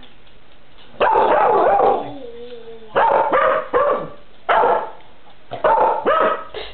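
English cocker spaniel barking in four loud bouts, the first about a second in and the last near the end.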